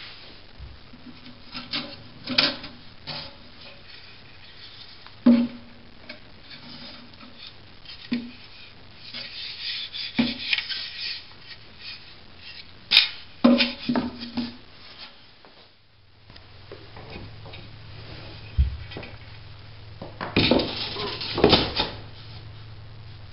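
Wood pieces of a heat vent frame being handled and worked by hand: scattered sharp knocks and clattering, with stretches of rubbing. A low steady hum starts about two-thirds of the way in.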